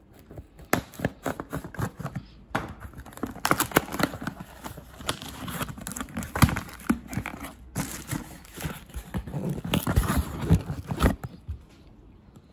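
A knife slitting the packing tape on a cardboard box, then the box flaps and packing being handled: irregular scrapes, taps and crinkling rustles, with short pauses.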